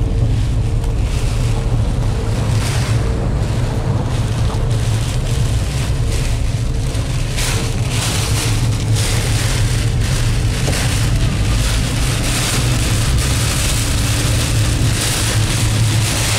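Car driving on a rain-soaked road, heard from inside the cabin: a steady low drone of engine and tyres under the hiss of heavy rain on the roof and windscreen. The rain hiss grows louder about halfway through.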